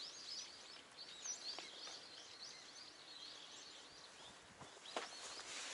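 Small birds chirping: a faint, continuous chatter of many short, quick high calls, with a couple of soft taps.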